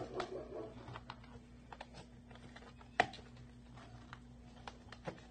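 Irregular small clicks and taps of linked metal paper clips with beads being hooked through holes in a cup, with one sharper click about three seconds in.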